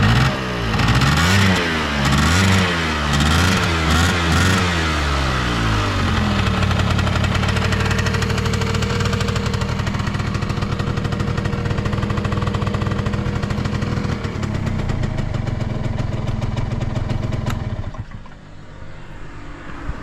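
Honda G Dash (AF23) 50cc two-stroke scooter engine blipped up and down about six times, then idling steadily. It cuts off near the end. It runs with no abnormal noise.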